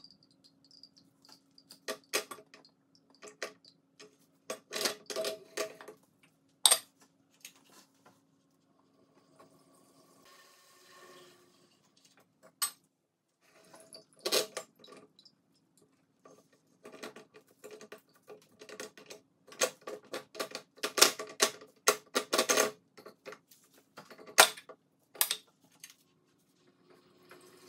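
Clinks, knocks and clatter of metal and glass as a vintage clock-parts cleaning machine is handled: the parts basket, the glass jar of cleaning solution and the swinging motor head are moved and set in place. The sounds come in irregular clusters of sharp clicks, the busiest and loudest in the second half, over a faint steady hum during the first half.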